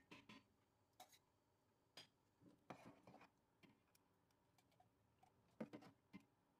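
Faint clinks and taps of a steel ladle against a stainless steel pot and a glass jar as thick damson plum marmalade is ladled into the jar, with a softer, longer wet slop of jam near the middle and a quick cluster of taps near the end.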